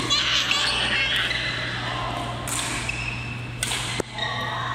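Badminton rally: rackets strike a shuttlecock several times with sharp, echoing hits, the sharpest about four seconds in, along with short high squeaks of sneakers on the court floor.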